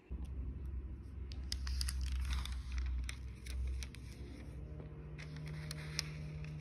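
Thin Bible pages rustling and crinkling as they are leafed through, in two clusters of crackly clicks. A low rumble runs under the first half, and a low steady hum comes in about halfway.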